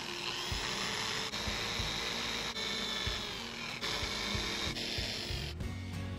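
Electric drill boring into a wooden slingshot blank, a steady whine with the bit cutting wood. It stops abruptly about five and a half seconds in.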